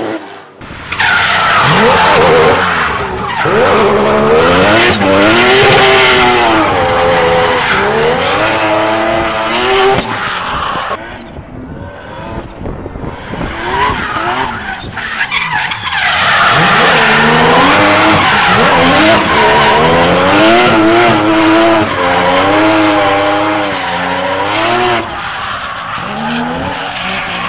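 Three-rotor rotary engine of a drift-built Mazda RX-7 revving hard, its pitch swinging up and down as the throttle is worked through the drift, with the rear tyres skidding and squealing. It drops back for a few seconds around the middle, then comes up loud again.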